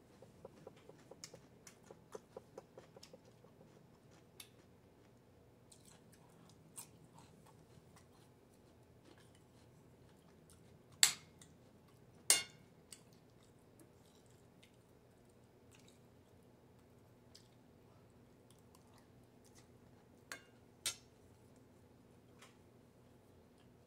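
Chewing crunchy food, a quick run of soft crunches in the first few seconds, most likely the pickled yellow radish. Eating utensils knock sharply against the china plate, twice near the middle and twice near the end.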